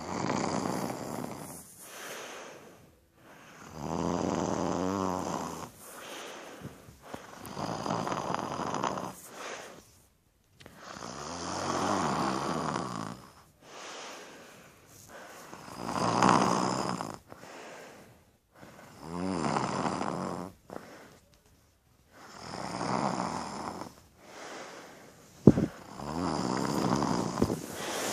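A sleeper snoring: a loud snore about every three to four seconds, with quieter breaths between, and a sharp click near the end.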